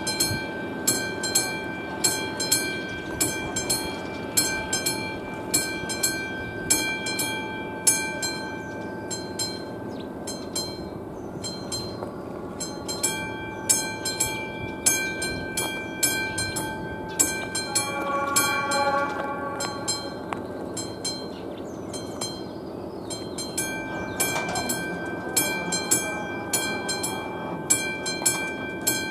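Classic electromechanical warning bell of an AŽD 71 level crossing ringing in steady repeated strikes, about two a second, signalling an approaching train. A train's horn sounds once, for about a second and a half, a little past the middle.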